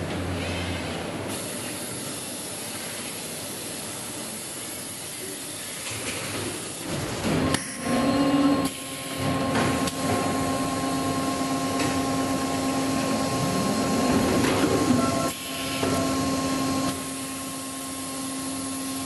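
Automatic heat transfer printing line running, with the printing machine and its loading robot arm working. It makes a steady mechanical hum with a low tone and a higher tone in it. About six to ten seconds in it grows louder and noisier, with short clattering stretches, and the noise drops briefly twice.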